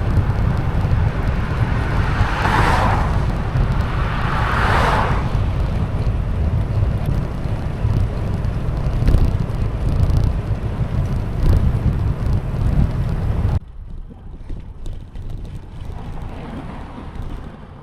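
Heavy wind buffeting the microphone while cycling fast, with two vehicles passing by one after the other, each rising and falling within about a second. About three-quarters of the way through the sound drops suddenly to a much quieter background.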